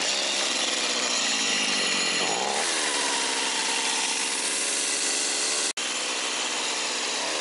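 An eight-year-old Stihl chainsaw running at high revs, cutting wood. Its pitch shifts about a third of the way in, and the sound breaks off for an instant about two-thirds through.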